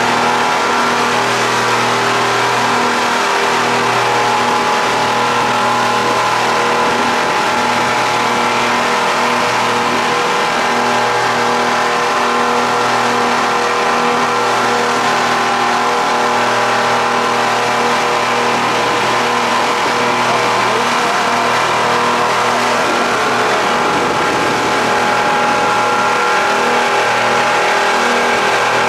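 A passenger speedboat's engines running steadily at cruising speed, a constant drone over the hiss of rushing water and wind.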